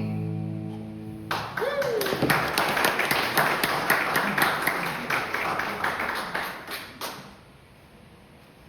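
The end of a song dies away, then an audience claps for about six seconds, with one short cheer near the start; the applause stops fairly suddenly.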